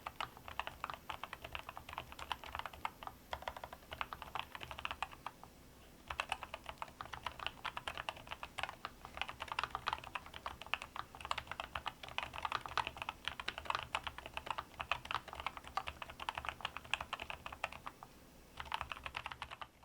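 Fast typing on a NuPhy Air96 V2 low-profile mechanical keyboard with Wisteria switches: a rapid run of key clacks that pauses briefly about five seconds in and again near the end.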